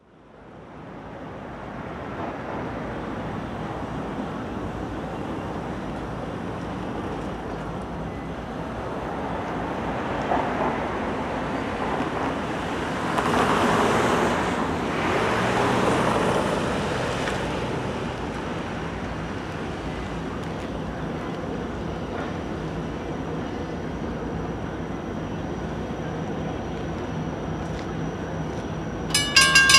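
Road traffic passing over a railroad grade crossing, with a car going by about halfway through. Near the end the crossing's warning bell starts ringing, a loud, quickly repeated ring, as the crossing signals activate for an approaching train.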